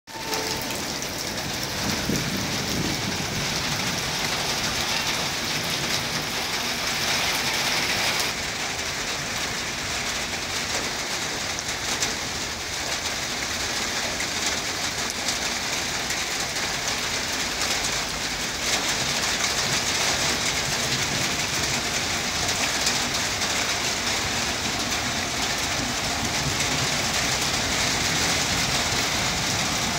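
Steady heavy rain falling and splashing onto wet ground and puddles, with an abrupt change in its tone about eight seconds in.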